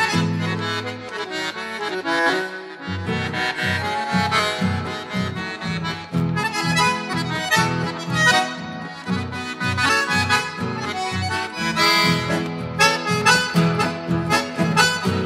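Upbeat instrumental background music with a steady bouncing beat.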